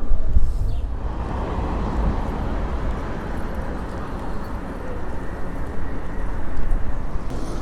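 Street traffic: a steady rush of passing vehicles over a low rumble.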